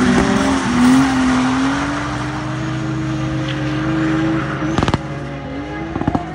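Drift car engine held at high revs, its pitch climbing slowly, then dipping and rising again, over a hiss of tyre noise. There are two clusters of sharp cracks, about five seconds in and again a second later.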